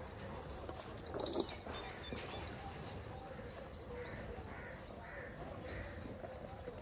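Small birds chirping, a run of short high chirps through the middle, over a few faint crunches from water buffaloes chewing raw potatoes at the trough.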